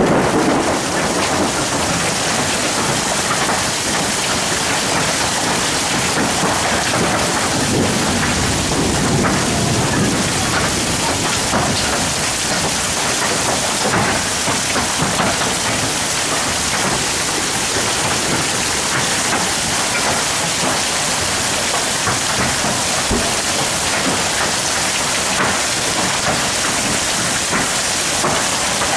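Hailstorm with heavy rain: hailstones and rain pelting down in a dense, steady hiss, with many sharp ticks of stones striking.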